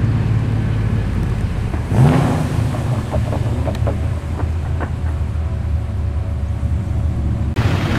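Holden Commodore SS V's V8 engine rumbling at low speed as it drives out, with a short rev about two seconds in.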